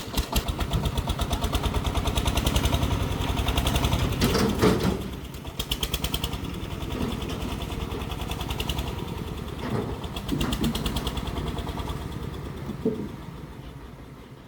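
Single-cylinder diesel engine of a công nông farm truck running with a fast, even thumping beat. It cuts in sharply at the start and grows louder over the first couple of seconds. There is some clattering about four to five seconds in, and the engine fades away near the end.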